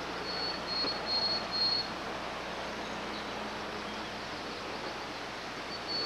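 Steady rushing of a mountain creek, with a few short, high, thin chirps in the first two seconds and again at the very end.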